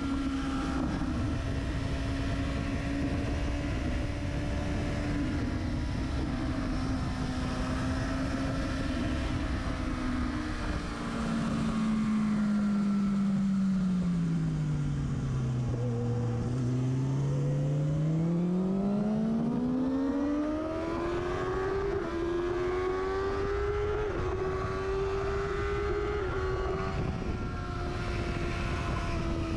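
Sports motorcycle's engine and exhaust at speed on track, close to the exhaust can, with wind rush over it. The revs hold high, fall away steadily to a low point about halfway through, then climb back up as the bike accelerates hard and stay high.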